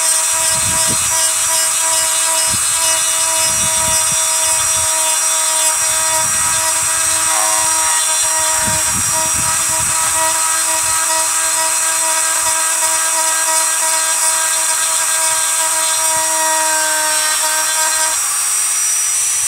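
Dremel rotary tool running at high speed with a steady whine while its bit engraves the bone of a human skull, giving repeated short low grinding sounds each time the bit bites into the surface. Near the end the whine dips slightly in pitch and thins out.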